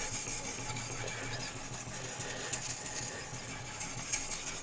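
Oil-impregnated Grinderman sharpening stone on a guided sharpener's rod, stroked back and forth along the edge of a hard REX 121 steel knife blade: continuous scraping of abrasive stone on steel, with a few slightly louder strokes.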